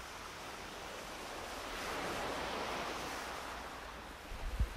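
Ocean surf washing on a beach, a steady rushing that swells and then eases off. A few brief low thumps come near the end.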